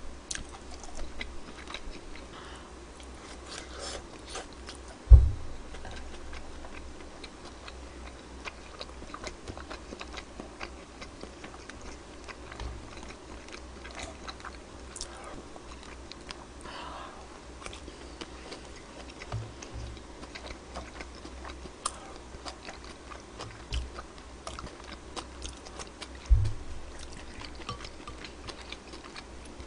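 A person eating close to a microphone: chewing with many small clicks of a metal spoon and chopsticks against bowls. Two dull thumps stand out, one about five seconds in and one near the end.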